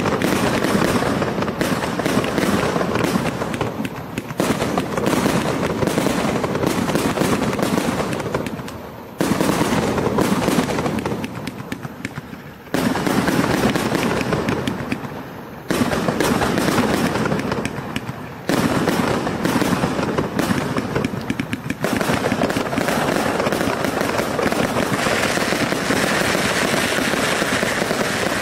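A 128-shot fireworks cake firing: a rapid, continuous barrage of tube launches and aerial bursts. It comes in several runs with brief lulls between them.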